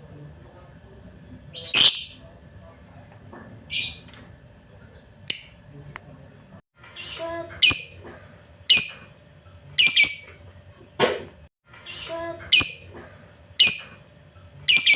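Lovebird giving short, shrill, high-pitched calls, about ten of them spaced roughly a second apart, over a faint steady hum.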